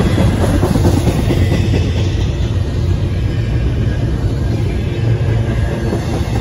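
Double-stack intermodal well cars of a CSX freight train rolling past: a steady, loud rumble of steel wheels on the rails.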